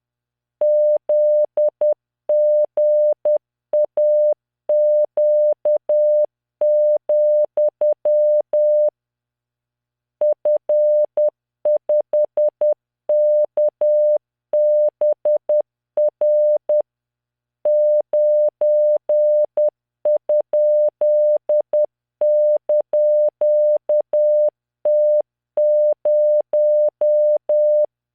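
Computer-generated Morse code: a steady 600 Hz tone keyed into dots and dashes at 10 words per minute, sending random five-character practice groups of letters, figures and punctuation. It breaks off for about a second a third of the way in, and briefly again past halfway.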